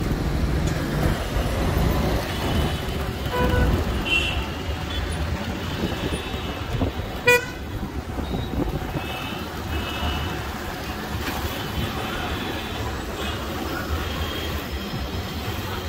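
City traffic heard from a moving two-wheeler: a steady engine and wind rumble, with vehicle horns tooting several times. About seven seconds in there is one sharp click.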